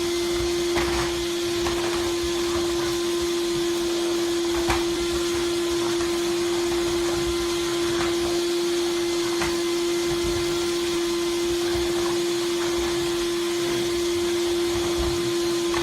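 Vacuum cleaner motor running steadily with an even hum, with a few faint light knocks now and then.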